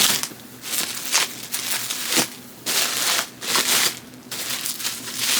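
Bubble wrap and plastic packaging crinkling and crackling as it is handled and pulled apart, in irregular bursts with a few sharp clicks.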